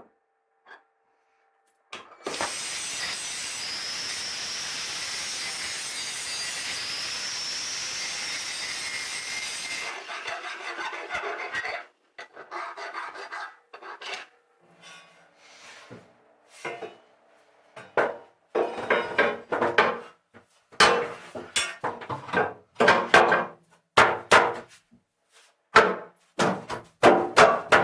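Workshop tool work: after a moment of quiet, a steady harsh hissing noise lasts about eight seconds, then a run of rhythmic rasping hand strokes follows, about two a second, like filing or sawing.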